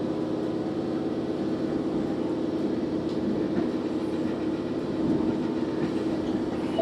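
Steady interior running noise of a diesel railcar under way: an even engine drone mixed with rail rumble.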